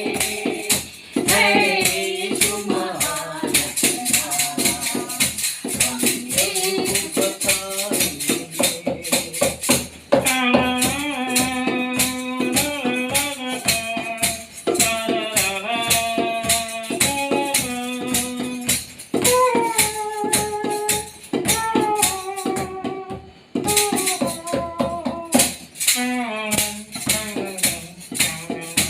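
Devotional song music: a steady, quick percussion beat under a melody of held notes.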